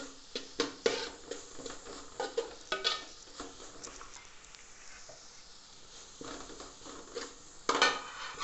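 Slotted metal spatula scraping and clinking against a metal pan while stir-frying chopped chicken, scrambled egg and vegetables over a high flame, with a faint sizzle underneath. A quick run of scrapes at the start, a few seconds of quieter sizzling, then another burst of stirring near the end.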